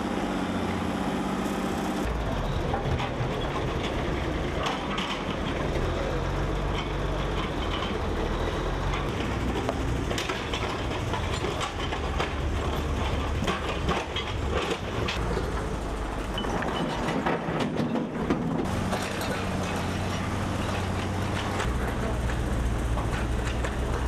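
Diesel engines of road-repair machinery, a wheel loader and a backhoe, running steadily. Sharp knocks and clatter of stone setts being broken up and shifted are thickest in the middle stretch.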